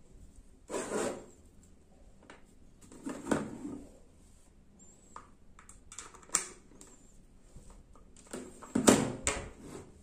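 Handling noise from a plastic speaker box and an aux cable. A short sharp click comes a little after six seconds in, as the 3.5 mm jack is pushed into the box's aux socket. The loudest knocks come near the end, as the box is set back down on the cutting mat.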